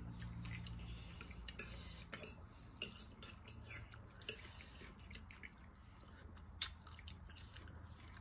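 Quiet sounds of eating roast chicken by hand: chewing and a scattering of short sharp clicks and taps, over a low steady hum.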